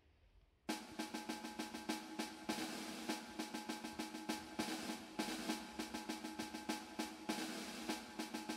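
Background music with a quick, steady drum beat over sustained tones, coming in suddenly under a second in after near silence.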